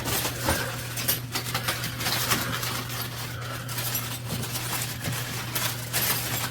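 Small metal hand tools from an e-bike toolkit clinking and rattling against each other as they are handled, with the crinkle of a plastic bag, in a run of light, irregular clicks.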